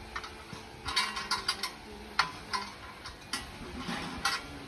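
Irregular sharp metallic clinks and knocks of metal against metal: a quick run of them about a second in, then single ones spaced out, over a faint steady hum.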